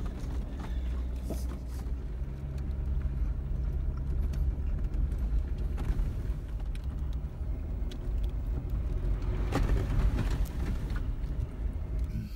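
Jeep Wrangler JKU Rubicon driving slowly along a rocky dirt trail, heard from inside the cab: a steady low engine and drivetrain drone with scattered knocks and rattles as the tires go over rocks and ruts.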